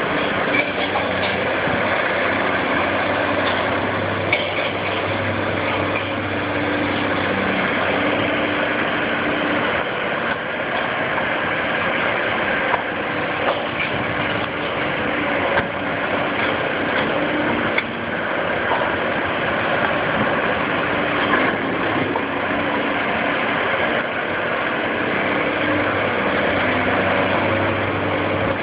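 Volvo tracked excavator's diesel engine running steadily, its note rising and easing as the hydraulics take load. A few short, sharp clanks and cracks come through as the demolition crusher jaw works the concrete rubble.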